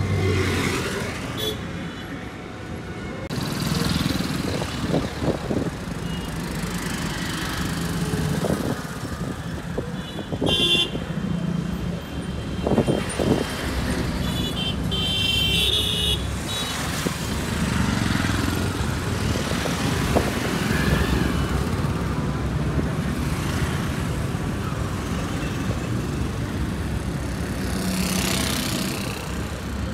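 Busy street traffic: motorbikes and other motor vehicles running and passing close by. Horns honk twice, about ten and fifteen seconds in.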